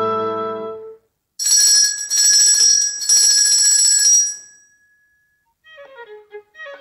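A held instrumental chord ends about a second in; after a brief silence a bright, high-pitched bell rings in three stretches for about three seconds, then fades. A quick bowed-violin line starts near the end.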